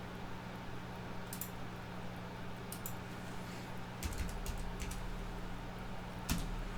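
Computer keyboard keys being typed: a few scattered keystrokes, then a quick run of them about four seconds in, over a steady low hum.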